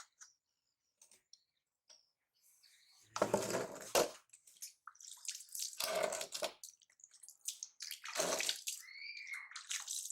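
Water splashing and pouring in several short bursts about two seconds apart, as in washing in a tub or basin. A brief high cry that rises and falls comes near the end.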